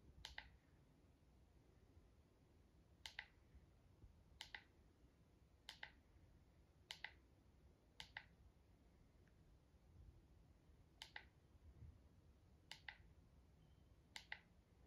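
Faint remote-control button clicks, about nine irregularly spaced presses, each a quick double click, as letters are picked one at a time on a TV's on-screen keyboard.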